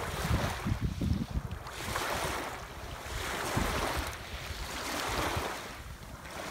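Small waves washing in and breaking at the water's edge, swelling and ebbing every second or two, with wind buffeting the microphone.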